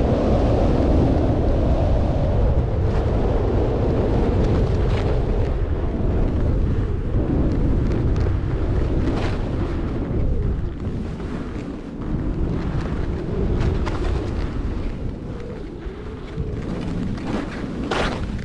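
Wind buffeting the microphone as a skier descends a groomed slope, a steady low rumble, with the hiss of skis sliding on packed snow. A few short sharp edge scrapes cut through, the loudest near the end as the skier turns.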